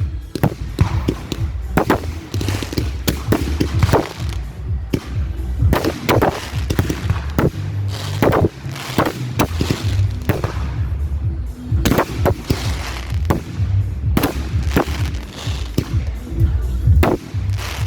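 Fireworks going off: a rapid, irregular string of sharp bangs and crackles, several a second at times. Under them runs music with a heavy bass.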